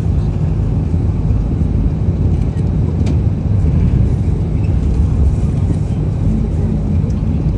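Tour bus running, heard from inside the cabin: a steady low rumble of engine and road noise.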